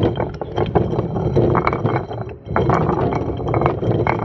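Hand-turned granite millstone grinding wheat: the upper stone grating over the lower one with a dense, gritty clicking. There is a brief break about two and a half seconds in before the grinding resumes.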